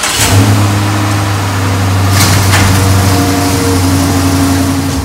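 Police patrol car's engine just after starting, running at a steady idle.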